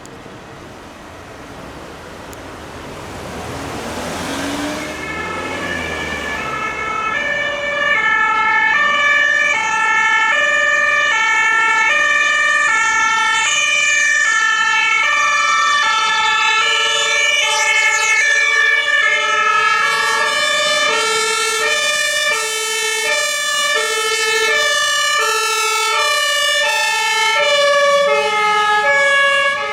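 Several German two-tone emergency sirens (Martinshorn) on responding fire engines and ambulances sound at once, each switching between its two pitches out of step with the others. A vehicle passes about four seconds in, and the sirens then come in and grow loud within a few seconds, staying loud after that.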